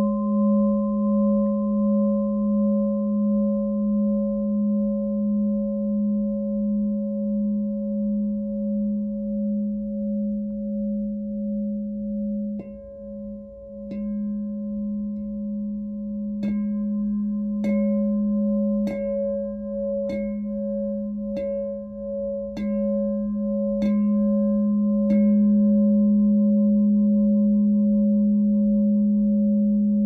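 Platinum-coated glass singing bowl ringing with a sustained, gently pulsing low hum and higher overtones. About halfway in it is struck lightly, then tapped about eight times at an even pace of a little more than one a second. After that it rings on steadily and a little louder.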